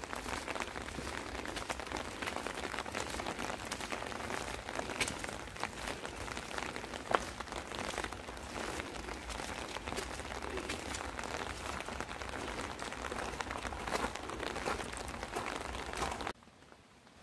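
Steady rain falling, with scattered drops ticking on a hard surface; it cuts off suddenly near the end.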